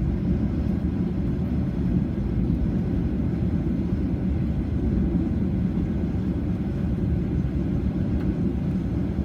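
Steady low rumble of a Boeing 737-800's passenger cabin on the ground after landing, with the engines and air systems running.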